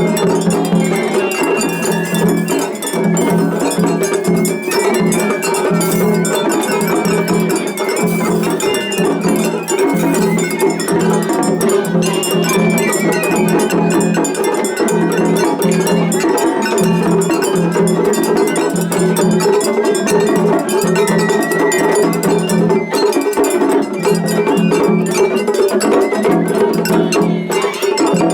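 Japanese festival hayashi music from the floats: drums keep a steady pulsing rhythm, a small hand gong clangs, and short high bamboo-flute phrases play over them.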